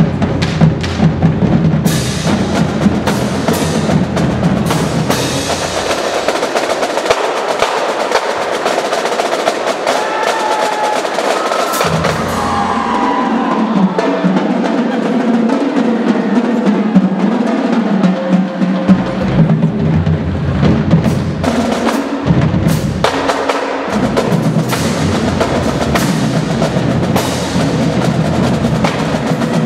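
High school marching drumline playing a busy percussion feature, snare drums and bass drums in fast interlocking rhythms. The low bass-drum part drops out twice in the middle, leaving the higher drums.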